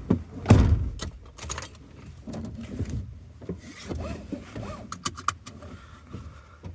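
Scattered handling noises: a loud thump about half a second in, then a run of light clicks, rattles and knocks.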